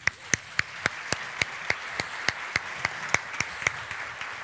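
Audience applauding, with one nearby pair of hands clapping loudly and evenly, about three or four claps a second, that stops near the end while the rest of the applause carries on.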